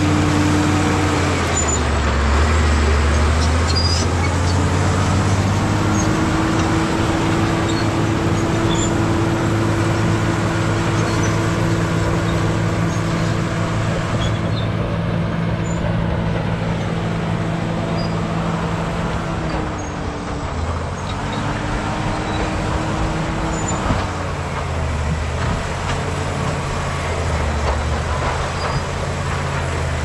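Caterpillar D7G bulldozer's six-cylinder diesel engine running hard at work. Its pitch dips and recovers a few times: about two seconds in, around twenty seconds and again near twenty-five seconds.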